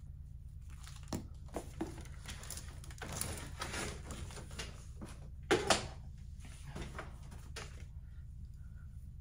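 Handling sounds: rustling and scattered light knocks as objects are moved and set down, with a louder double knock about five and a half seconds in, over a steady low hum.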